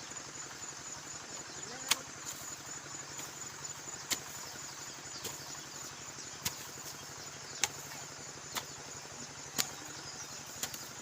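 A small engine running steadily, with sharp knocks every second or two.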